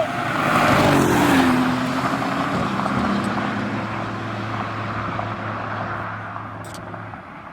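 Street-racing car speeding past, its engine note dropping in pitch as it goes by, then fading into the distance.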